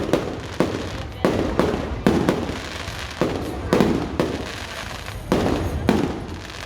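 Fireworks going off in quick succession: about a dozen sharp bangs, each fading out over roughly half a second.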